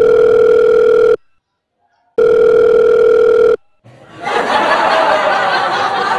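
Telephone ringback tone: two long steady beeps, each about a second and a half, with a gap of about a second between them, as a call goes through. After a short pause a steady hissing noise fills the last two seconds.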